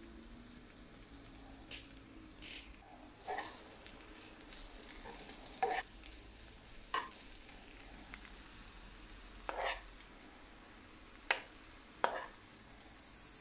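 A metal spoon stirring a fried sardine and onion mixture in a non-stick frying pan, with about eight scattered scrapes and clinks against the pan over a faint, steady sizzle.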